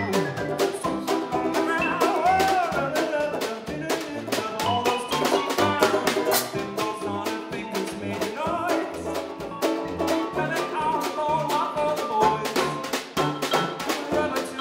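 A small old-time jazz band plays live: strummed banjo, tuba bass line, a drum kit keeping a steady beat, and xylophone, with a man singing at times.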